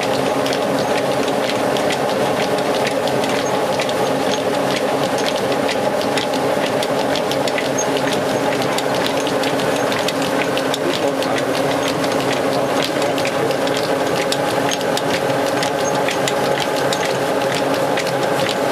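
Old wooden belt-driven rice mill running steadily: a constant mechanical hum with a dense, fast, irregular ticking over it.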